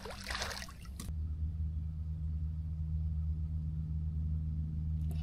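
A crappie splashes into the lake beside the boat during the first second. From about a second in, a steady low motor hum runs on.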